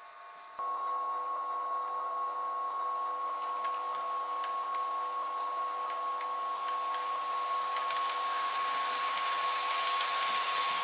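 Model train running out of the station: its motor gives a steady high whine with a lower hum beneath, starting suddenly about half a second in, with a hiss that grows toward the end.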